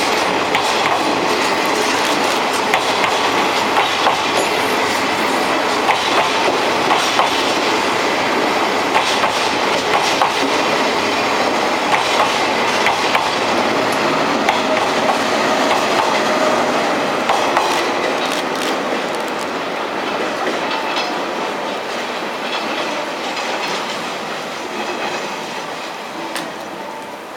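Hokutosei sleeper express's passenger cars rolling past, wheels clicking rapidly over the rail joints; the clatter fades away over the last ten seconds as the train recedes.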